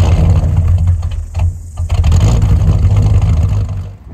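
Series 3 Land Rover engine running, heard at the tailpipe as a loud, low, throbbing exhaust rumble that stops about four seconds in.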